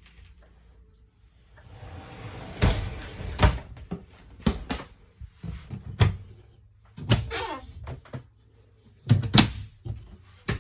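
A series of sharp knocks and clatter, about half a dozen spread through the stretch, with a short wavering squeak about seven seconds in.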